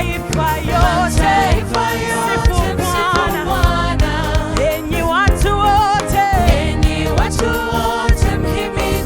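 Gospel music: singing over a band with steady bass and drums.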